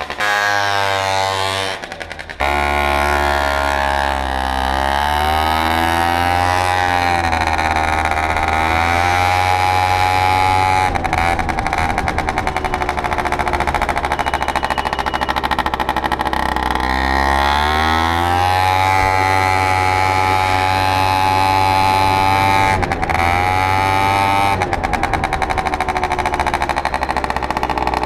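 MBK Booster Spirit 50 cc two-stroke scooter engine under way, its revs rising and falling several times as it is ridden. It runs cleanly, with no carburettor adjustment needed.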